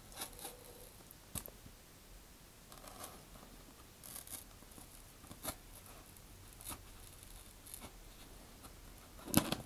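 Hobby knife scoring a thick paper rocket body tube in light passes: faint short scratches about once a second, with a louder, sharper one near the end.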